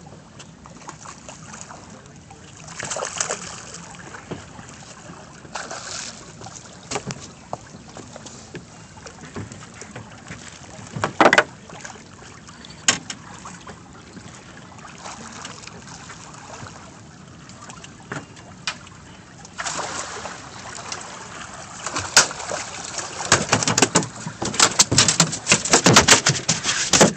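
Water sloshing against a fishing boat's hull over a steady hiss, with a few sharp knocks. From about two-thirds of the way through, a dense run of crackling and knocking sets in.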